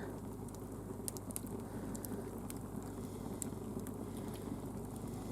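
Wood fire burning as the logs catch, a steady low rush of flame with scattered sharp crackles and pops.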